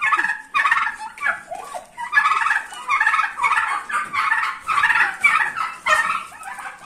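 Domestic turkey toms gobbling again and again, one rattling gobble after another with hardly a break.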